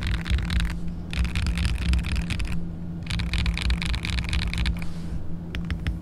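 Fast typing on a mechanical keyboard with Akko CS Rose Red linear switches in an acrylic sandwich gasket-mount case, in runs of rapid key clacks broken by short pauses, over a steady low background rumble. Near the end the typing gives way to evenly spaced single presses of the spacebar, which has Durock POM stabilizers.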